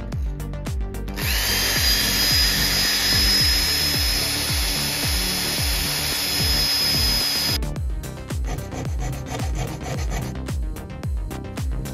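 A power tool cutting a steel threaded rod held in a vise: a steady high-pitched whine and hiss starts about a second in and stops sharply after about six seconds. Then a file scrapes the rod's cut end in short strokes, over background music with a steady beat.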